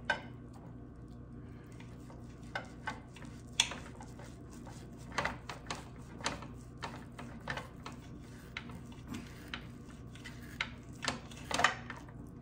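Cutlery clicking and scraping on a plate while eating, in irregular short taps, the loudest about three and a half seconds in and near the end, over a faint steady hum.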